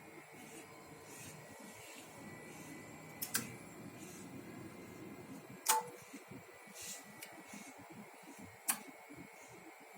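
Sharp switching clicks from the amplifier test bench, three loud ones a few seconds apart and a softer one between, over a faint steady electronic hum. The middle click comes with a brief short beep.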